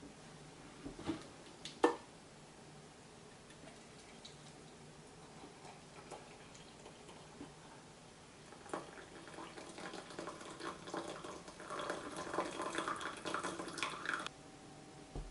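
Water poured from a kettle into a double-walled glass onto a tea bag: a trickle that starts about nine seconds in, grows fuller as the glass fills, and stops suddenly near the end. Before it, a few light knocks about a second in, the sharpest just before two seconds.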